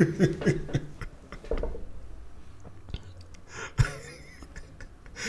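A man chuckling quietly to himself close to the microphone: short low laughs in the first second, then breathy exhales and small mouth clicks, with one louder breath of laughter a little before the end.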